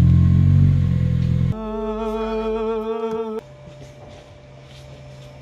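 A car engine running, low and loud, for about a second and a half, then cut off abruptly. A person's voice holds one long wavering note for about two seconds, which stops suddenly and leaves a quiet steady low hum.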